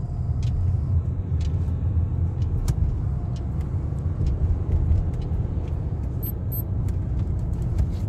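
Steady low rumble of a car's engine and tyres heard from inside the cabin as it drives down a steep, winding road in gear, using the engine to brake. Light, scattered ticks and small rattles sound over the rumble.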